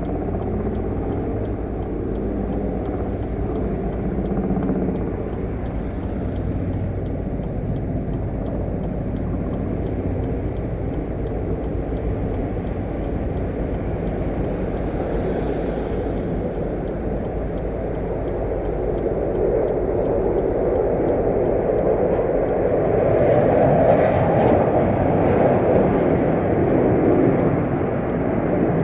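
Steady engine rumble, swelling louder over the last third.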